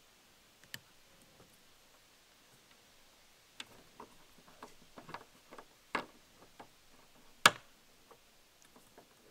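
Small plastic clicks and taps as a W5W wedge bulb is pushed into its socket and the socket is fitted back into the rear lamp housing. The loudest, sharpest click comes about seven and a half seconds in.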